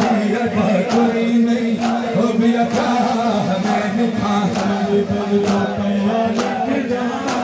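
Shia devotional noha: male voices chanting a lament, with a group chorus over a steady beat a little under once a second.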